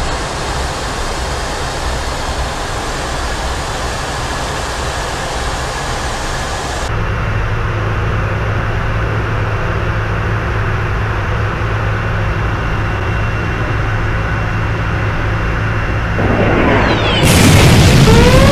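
Steady rushing aircraft noise, which changes character about seven seconds in. Near the end it builds and breaks into a loud explosion.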